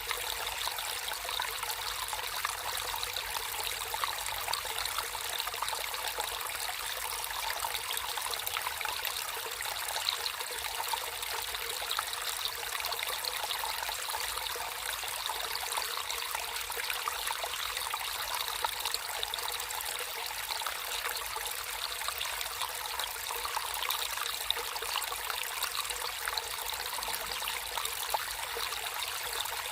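Water flowing and trickling steadily in a small natural stream, a continuous busy splashing hiss without breaks.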